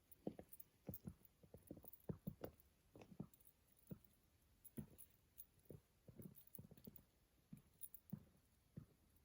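Faint footsteps crunching on a snowy trail, a soft thud about twice a second, uneven and spacing out toward the end.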